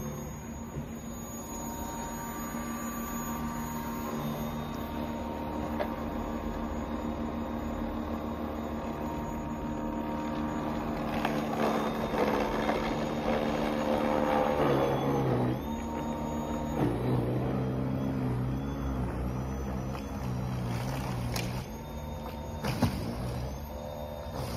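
WORX WG471 40-volt cordless 20-inch snowblower's electric motor and auger running with a steady whine, its pitch shifting several times in the second half as it clears and throws snow.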